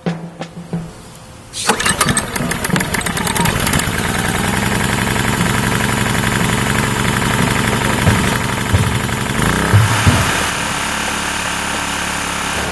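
Ryobi RYi2200 inverter generator's gas engine starting up about one and a half seconds in, then running steadily, with a shift in its sound near the end.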